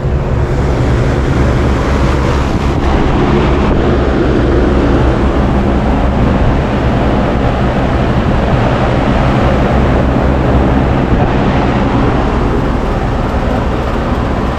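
A 10-ton Goodman commercial rooftop air-conditioning unit running steadily, freshly kicked on: an even fan whoosh over a low, steady hum.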